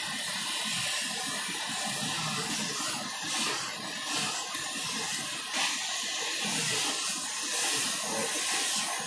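Handheld gas torch hissing steadily with its blue flame, heating a tenon against a gun barrel to melt the solder.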